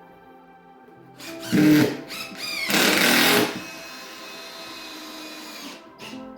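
Handheld power tool running in two short bursts, the second and louder one winding down slowly, over background music.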